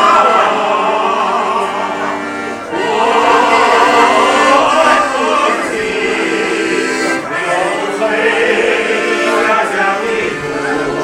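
A group of older people singing a Chinese song together, accompanied by an accordion holding steady chords, with two short breaks between phrases.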